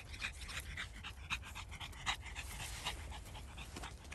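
A Pekingese dog panting close by, in quick short breaths several times a second.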